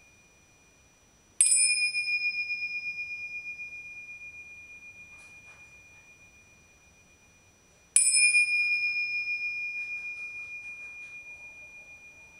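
Pair of Tibetan tingsha bells struck together twice, about six and a half seconds apart. Each strike rings out in one high, clear tone that wavers as it slowly fades.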